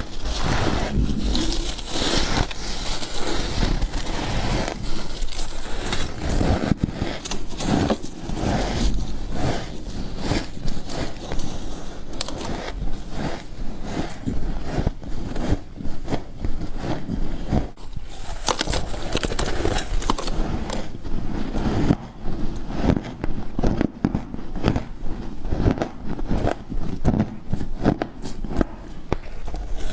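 Frost being bitten and chewed: continuous dense, irregular crunching and crackling.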